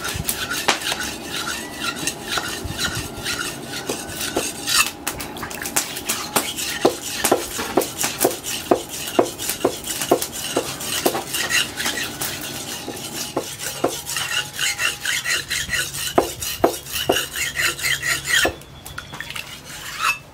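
Steel knife blade, forged from leaf-spring steel, being sharpened by hand on a wet sharpening stone: repeated strokes of metal scraping across stone, coming quickly and evenly in the middle and stopping shortly before the end.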